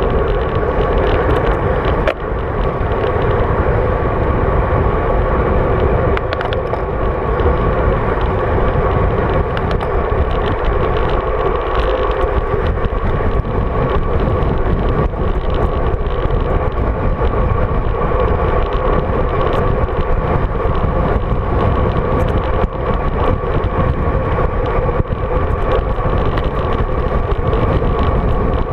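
Wind rushing over a GoPro Hero 3 on a road bike descending at about 60 km/h, with the tyres running on asphalt: a loud, steady rush with a constant hum.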